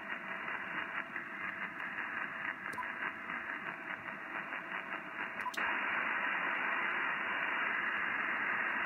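Icom IC-7300 receiver audio in USB: a hiss of powerline-adapter interference, fluttering with rapid data bursts. Two short touchscreen beeps come about three and five and a half seconds in. At the second, the radio changes band and the noise turns to a steadier, slightly louder hiss.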